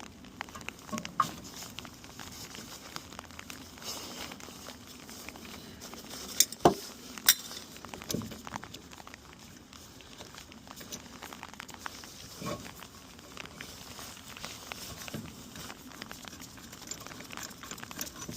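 A brake caliper piston wind-back tool being worked off a rear brake caliper: scattered small metal clicks and clinks, with a few sharper clicks about six to seven seconds in.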